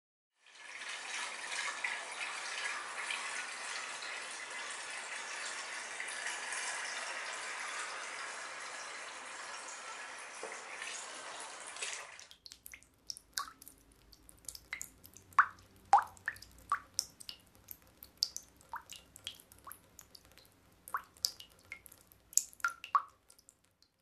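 A steady hissing rush for about twelve seconds that cuts off suddenly, followed by single water drops plinking one at a time at irregular intervals, a few of them loud and clear.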